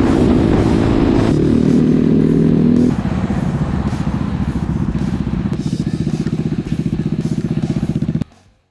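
Motorcycle engine running, its pitch falling over the first three seconds as it slows, then settling into a steady pulsing idle. The sound drops out abruptly for a moment near the end.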